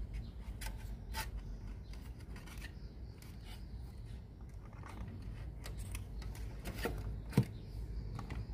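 Hands and small tools working on a cassette player's parts: scattered light clicks and scraping over a low hum, with one sharper click near the end.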